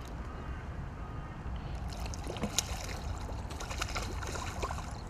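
A hooked carp splashing and thrashing at the pond surface close to the bank while being played on rod and line. The splashes come as a run of small, quick sloshes from about two seconds in.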